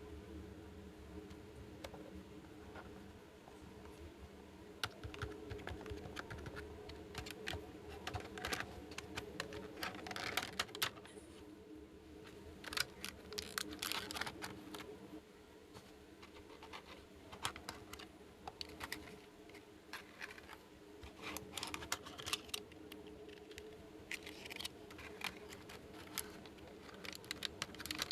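Miniature plastic toy pieces being handled: irregular light clicks and taps, thicker in clusters, over a faint steady hum.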